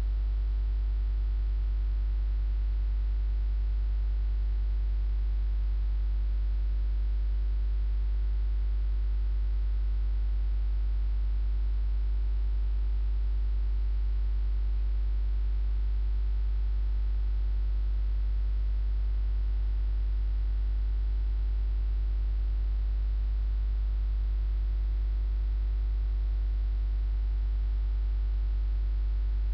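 Steady electrical mains hum with faint hiss, unchanging throughout, with no calls or other sounds over it.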